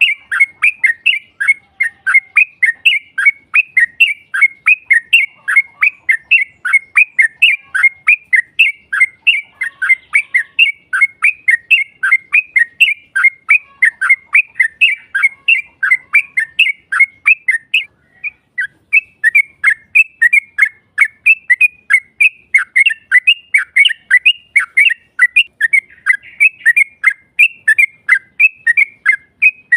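Yellow-vented bulbul (trucukan) singing a long rapid chattering song: short sharp notes repeated about four a second, broken once by a short pause a bit past halfway.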